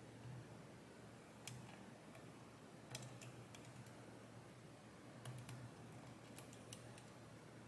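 Faint, scattered metallic clicks of a hook pick working the pins inside a VSR high-security pin-tumbler lock under tension, about ten irregular ticks with the sharpest one about three seconds in.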